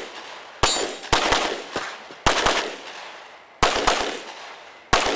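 Open-division race-gun pistol firing about a dozen rapid shots in short quick strings, with pauses of up to about a second between them. Each shot is sharp and trails off in a short echo.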